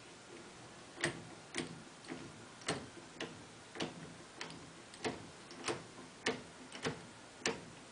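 Atlas 9-inch lathe carriage being cranked along the bed by its apron handwheel, giving a regular click about twice a second.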